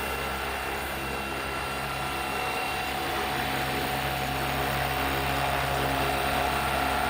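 Flywing Bell 206 V3 RC helicopter running steadily: electric motor whine and spinning rotor blades. A further steady whine joins in about three seconds in, and the sound grows slightly louder.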